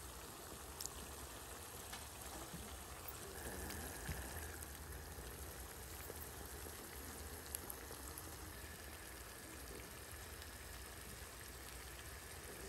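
Shrimp and squid stir-fry simmering in its liquid in a pan: a faint, steady bubbling sizzle with a few light ticks.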